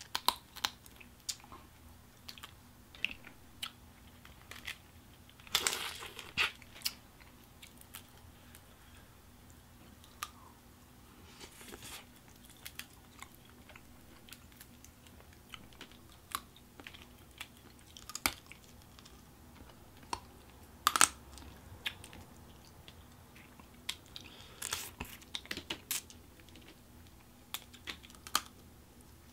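Eating crawfish by hand, close to the microphone: shells cracked and peeled with fingers, and chewing. Irregular sharp clicks and snaps, with a few longer crackly stretches.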